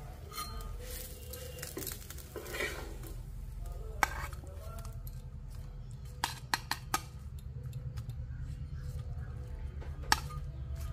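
Spatula scraping food off a tawa and knocking against a steel plate as the pieces are moved onto it: a scraping stretch, then sharp clinks about four seconds in, a quick group of them near the middle and one more near the end, over a steady low hum.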